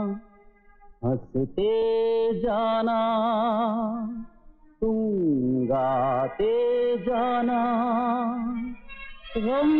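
Film song sung in high children's voices, slow held notes with a wavering vibrato over a sustained accompanying note. The singing breaks off briefly just after the start and again near the middle.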